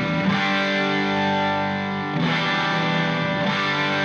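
Background music: distorted electric guitar chords with effects, changing every second or two.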